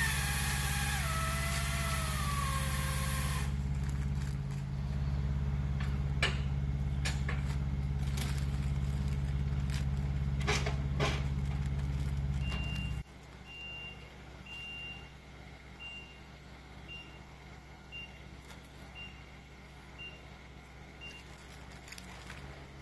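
Machine engine, most likely the cherry picker's, running steadily, with a falling whine in the first few seconds and a few sharp knocks. About halfway through the engine noise drops away and a warning beeper sounds about once a second.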